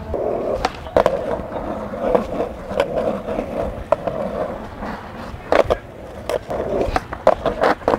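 Skateboard wheels rolling on asphalt, with several sharp clacks of the board hitting the ground, a few of them in the second half.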